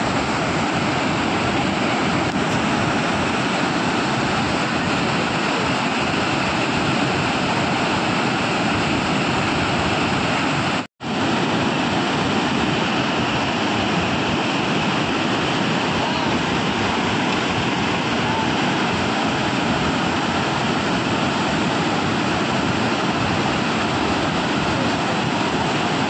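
Unchalli Falls in full monsoon flood: a steady, loud rush of heavy falling water. The sound drops out for a moment about eleven seconds in.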